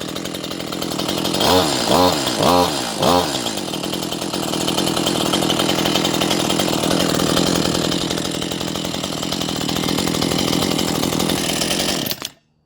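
Stihl MS 181 C-BE two-stroke chainsaw idling, warming up after a cold start. About a second and a half in, the throttle is blipped four times in quick succession, each rev rising and falling. The engine then idles steadily and is shut off near the end.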